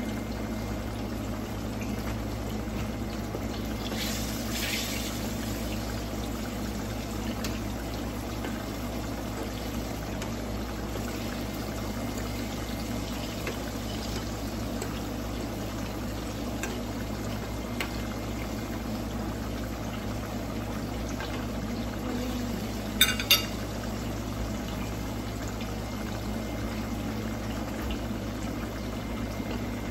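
Ripe plantain slices sizzling steadily in hot oil in a frying pan, with a short louder hiss about four seconds in. Two quick, sharp clinks about three quarters of the way through.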